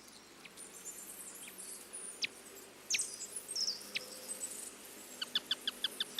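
Small birds chirping and calling: scattered high chirps and a few quick downward-sweeping notes, then a rapid run of repeated call notes, about eight a second, in the last second.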